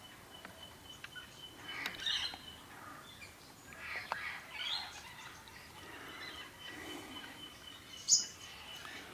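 Wild birds chirping and calling in short scattered bursts, with one sharp high-pitched call about eight seconds in, the loudest sound. A faint thin steady high whistle runs underneath for a few seconds at a time.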